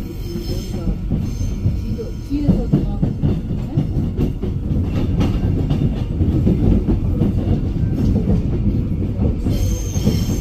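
Seoul Subway Line 2 train running, heard from inside the car: a steady low rumble of wheels on rail, with a faint wheel squeal at first. About two and a half seconds in it grows louder, with a dense clatter and rattle of wheels over the track.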